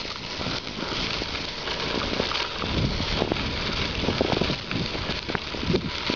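Bicycle rolling over a rough country lane: steady tyre noise with many small irregular clicks and rattles.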